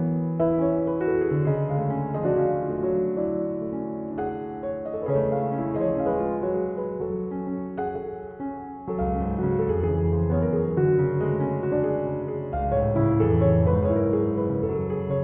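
Background piano music, gentle and slow, with deeper bass notes coming in about nine seconds in.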